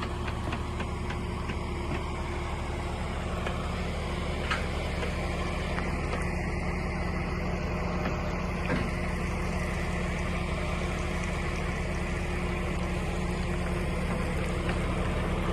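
Engine of the heavy lifting machine running steadily under load as it hoists a sailboat out of the water.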